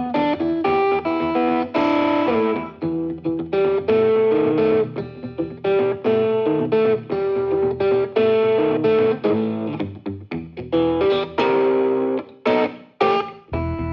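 Electric guitar with some distortion playing a blues riff of picked single notes and short chords, pausing briefly a few times near the end.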